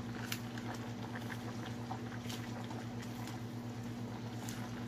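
Pot of pork-rib soup with napa cabbage simmering on the stove: scattered small bubbling pops and light clicks over a steady low hum.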